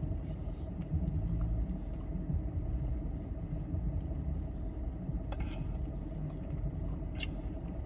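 Steady low rumble heard inside a car, with a faint steady hum and a couple of faint clicks about five and seven seconds in.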